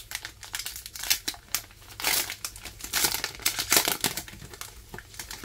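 Foil wrapper of a Pokémon Scarlet & Violet booster pack being torn open and crinkled in the hands as the cards are pulled out: a run of crinkling rustles, loudest about two to four seconds in.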